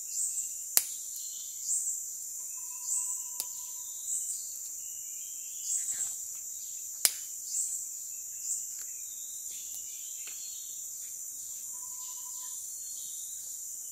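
Steady high-pitched insect chorus of tropical forest, with short chirps every second or so and two brief whistled notes. Two sharp clicks, about a second in and about seven seconds in, stand out as the loudest sounds.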